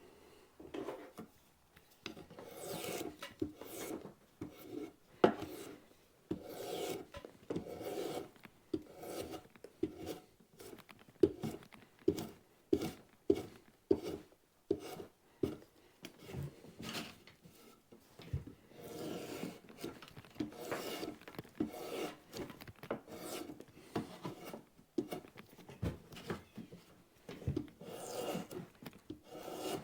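Drawknife shaving bark off a branch leg clamped in a shave horse, in repeated scraping strokes about a second apart, with a run of sharper clicks partway through.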